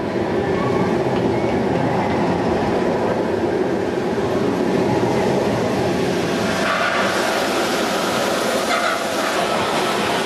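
Steel looping roller coaster train running along its track: a steady rumble and clatter, with a brighter hiss joining about two-thirds of the way through.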